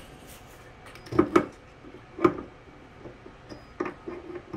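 Stainless steel handheld bidet sprayer knocking against its metal wall holder as it is handled and fitted: a quick double knock, then a single one, and a softer one near the end.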